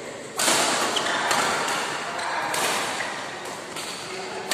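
Badminton rally: sharp racket strikes on the shuttlecock about once a second, the first and loudest coming from a jump smash just after the start, over the noise of players moving on the court.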